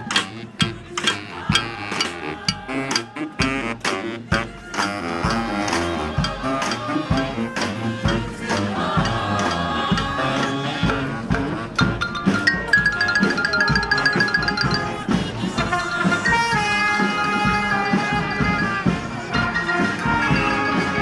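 Marching street band playing: sharp drum strokes for the first few seconds, then held horn notes come in and carry a melody over the drums.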